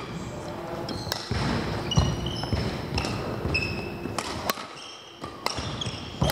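Badminton rally on a sprung wooden hall floor: several sharp racket hits on the shuttlecock a second or two apart, with short high squeaks of court shoes and thuds of footwork between them.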